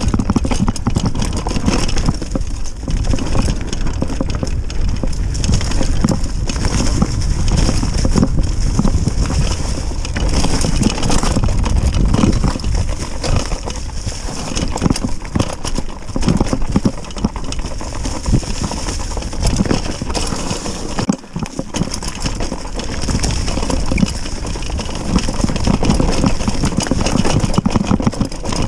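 Mountain bike riding down a rough downhill trail: continuous rumble of the tyres and bike over the ground, with many sharp knocks and rattles from the bike all the way through.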